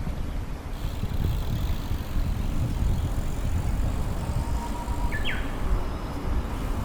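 Low, unsteady rumble of passing road traffic with wind on the microphone. A brief high chirp about five seconds in.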